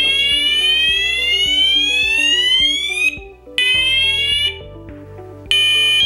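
C-TEC Hush-Pro fire alarm sounder running its test tones: a high rising sweep lasting about three seconds, then a second sweep cut short, the Fire Level 1 tone; near the end a different, steady high tone starts, the Fire Level 2 alarm. Background music plays underneath.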